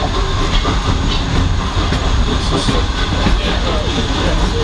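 Railway carriage running at speed on the track, heard from inside: a steady low rumble of wheels on rails with occasional faint clicks over the rail joints.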